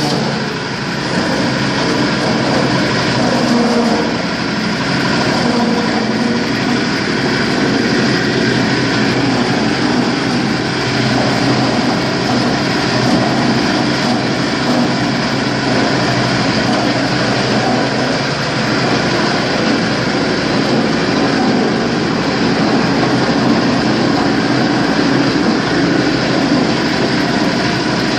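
Areca nut splitting machine with two blades running steadily, a loud, even mechanical din with a constant hum as nuts pass through and are cut into halves.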